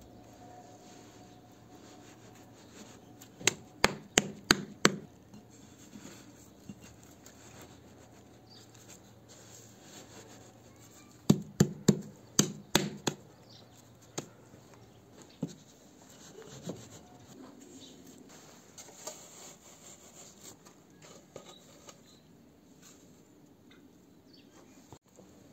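Rough stone blocks knocked into place on a mortar bed: two quick runs of about six sharp knocks each, a few seconds apart, with softer scraping and handling sounds between.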